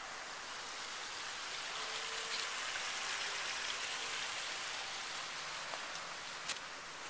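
Steady splashing rush of water spilling down a boulder waterfall, with one sharp click near the end.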